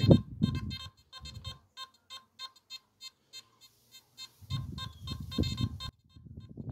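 Nokta Makro Simplex metal detector giving a rapid, uneven run of short beeps as a coin is swept in front of its coil, its signal that it is detecting the target; the beeps stop near the end. Low thumps and rumbles come and go underneath, the loudest right at the start.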